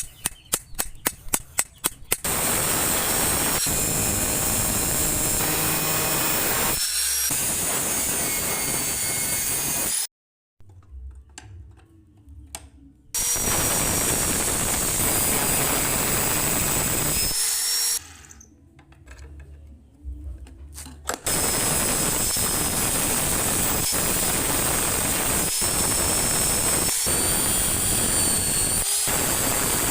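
A quick run of about eight sharp metal strikes, then a power grinder working steel in three long runs with a high whine, stopping twice for a few seconds.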